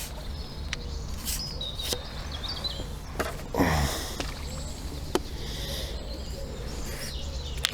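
Small birds chirping briefly a few times over a steady low rumble, with a few sharp clicks.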